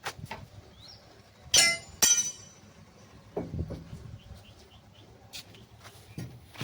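Two sharp metallic clangs about half a second apart, each ringing briefly, among scattered lighter knocks: metal being struck or dropped during concrete column work.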